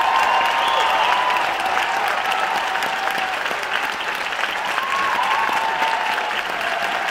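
Theatre audience applauding, with a few voices calling out above the clapping near the start and about five seconds in.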